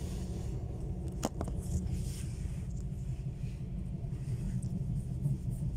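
Steady low rumble of an ESh1 (Stadler KISS double-deck) electric train heard from inside the passenger cabin as it runs along the track, with a single sharp click about a second in.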